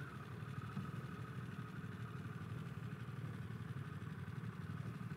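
Harley-Davidson Pan America's Revolution Max 1250 V-twin running at low revs while the motorcycle rolls slowly, a steady pulsing rumble heard from the rider's position. A faint whine falls in pitch just at the start.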